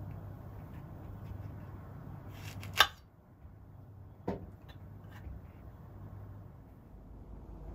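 Kitchen knife cutting into a shiitake mushroom cap on a bamboo cutting board: a few light clicks, then a sharp knock of the blade on the board about three seconds in and a smaller one about a second and a half later, over a low steady hum.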